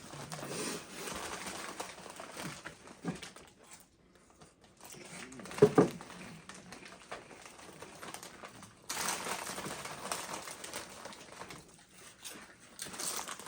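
Crinkling of a Doritos chip bag and chips being chewed, in noisy crackly stretches, with one brief loud sound about six seconds in.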